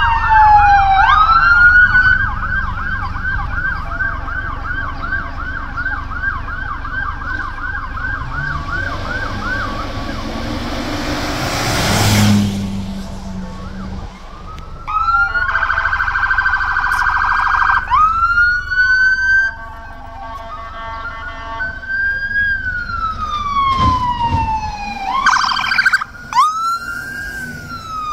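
Electronic sirens of an ambulance and a police emergency-service truck, switching between long rising-and-falling wails and a fast yelp. A brief loud rushing noise comes about twelve seconds in.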